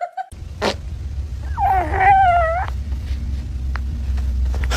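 A kitten meowing once, a wavering call of a bit over a second about one and a half seconds in, over a low steady hum.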